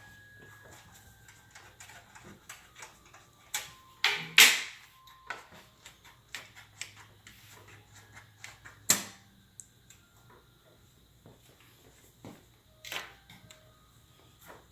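Clicks, taps and light scraping of hands taking the side panel off a mid-tower computer case, with two sharper knocks about four seconds in and nine seconds in.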